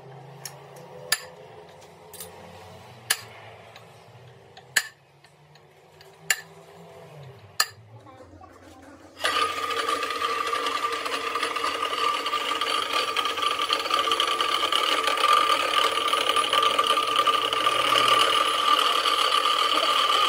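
Sharp metallic clicks, one every second or so, as hole positions are marked on a steel plate. About nine seconds in, a pillar drill starts abruptly and runs steadily with a whine while its twist drill cuts into the steel plate.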